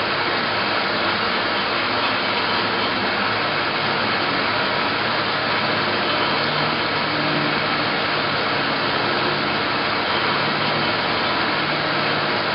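Johnson Model J horizontal metal-cutting bandsaw running steadily: an even mechanical whir with a low hum and a faint high whine.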